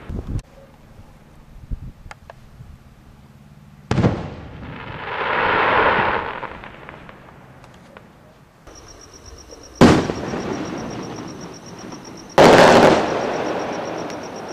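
Aerial firework display shells bursting in the air. A sharp bang about four seconds in is followed by a swelling rush of noise lasting about three seconds. Two more loud bangs come near the end, each with a long rolling tail.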